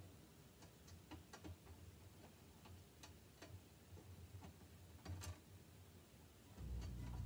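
Faint, scattered small metal clicks and ticks of a screw and hex nut being fitted by hand into a perforated VEX metal plate. A low steady hum comes in near the end.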